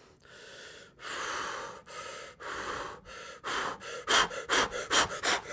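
A man breathing hard: a few long breaths at first, then quick, loud gasping breaths, about two to three a second, over the last two seconds.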